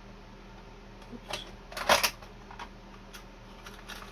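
A few sharp clicks and light knocks of hard objects being handled, with a louder clatter about two seconds in.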